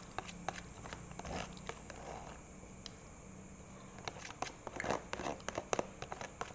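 Eating sounds: a metal spoon clicking and scraping against a clear plastic tub of porridge soup as she scoops it, with chewing. The small clicks come scattered, sparser in the middle and busier near the end.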